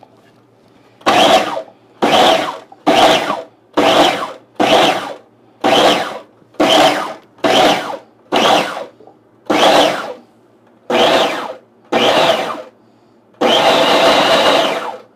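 Small electric food processor pulsed in about a dozen short bursts, roughly one a second, then run for nearly two seconds near the end, chopping wine-soaked prunes and fruit to a rough chop.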